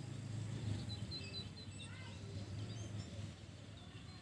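Small birds chirping, a cluster of short high chirps a second or two in, over a low steady rumble that drops away a little after three seconds.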